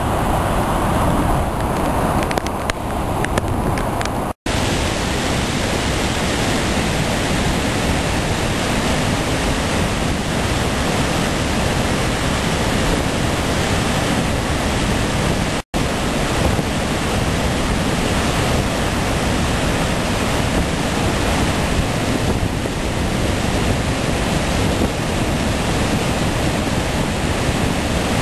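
Typhoon floodwater surging down a swollen river in churning rapids: a loud, steady rush of water. The sound cuts out for an instant twice, about four and fifteen seconds in.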